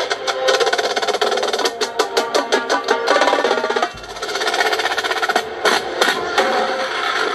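Drum corps playing live: rapid runs of drum strokes from the drumline over sustained pitched tones from the horns and front-ensemble keyboards, with a deep drum hit about four seconds in.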